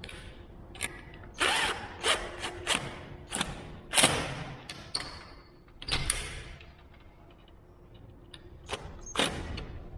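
A screwdriver working a small screw into a flush bolt on an aluminium door: an irregular run of metallic clicks and scrapes, busiest in the first half, with one more sharp scrape near the end.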